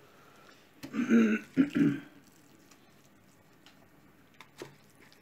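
A man clears his throat once, about a second in. After it there are a few faint clicks and taps from the knife against the salmon and the cutting board as the fish is being stuffed.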